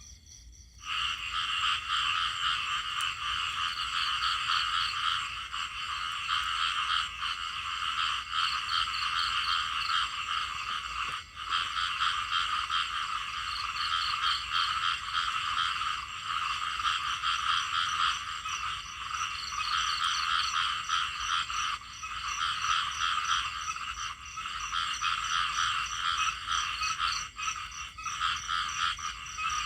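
A chorus of small frogs (khiat) calling, many rapid croaks overlapping in a dense, continuous din that starts about a second in.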